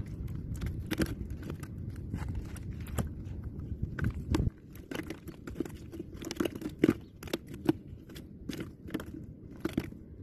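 Irregular clicks, knocks and crunches as a freshly caught fish on a line is handled over and into a plastic cooler. Wind rumbles on the microphone until about halfway through, then stops.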